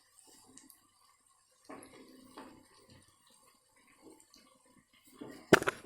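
Cooking utensil scraping and tapping in a kadai while snacks shallow-fry, with one sharp clank against the pan near the end.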